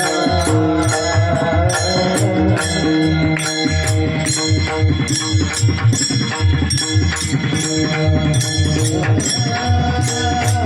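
Marathi devotional bhajan music: mridang drum strokes and a steady beat of sharp metallic clicks under long held melodic notes.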